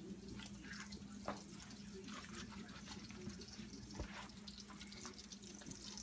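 Faint crackling sizzle of meat patties frying in a pan on the stove, over a low steady hum, with a couple of light knocks.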